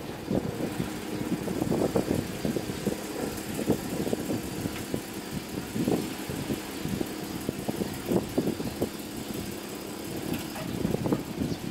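Porsche Cayman's engine running at low speed as the car reverses slowly into a parking spot, with irregular crackles over the steady engine sound.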